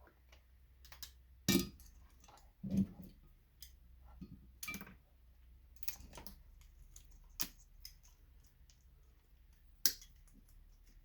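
Irregular sharp clicks and snaps of pliers and cutters working the plastic bulb sockets of a Christmas light string, pulling bulbs out to get at the brass contacts. The loudest snaps come about a second and a half in, near three seconds, and near the end.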